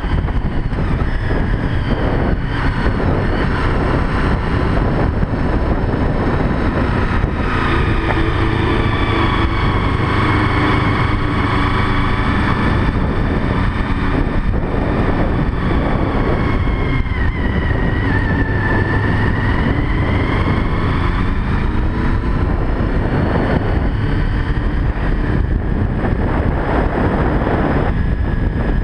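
Sport motorcycle engine running at riding speed under steady wind rush on the camera microphone. Its pitch climbs through the middle, dips briefly and rises again as the throttle is worked.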